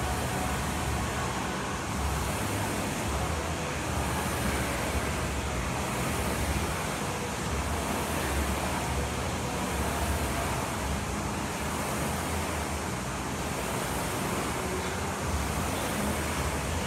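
Steady rushing noise with a low hum from fans moving air, unchanging throughout.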